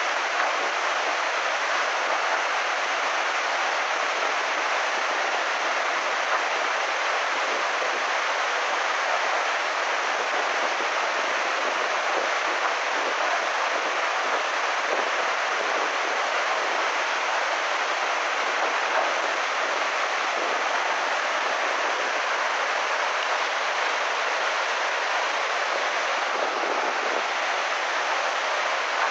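Muddy flash-flood torrent rushing past in a steady, unbroken wash of water noise.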